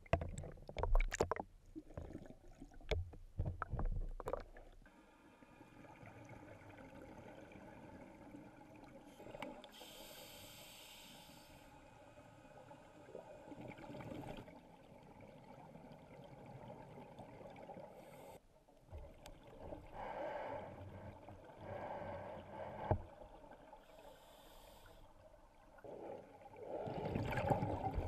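Muffled underwater sound heard through a GoPro's waterproof housing. There are irregular knocks and bumps for the first few seconds, then a low steady hiss broken by several surges of scuba exhaust bubbles, the loudest near the end.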